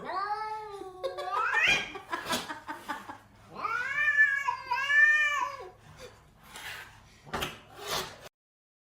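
Domestic cat meowing: one long drawn-out meow that rises at the end, then two arched meows in a row a couple of seconds later, with a few sharp taps in between.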